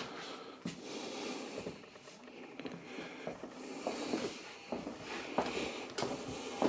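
Faint footsteps and small knocks on a wooden floor, scattered and irregular, over a soft hiss.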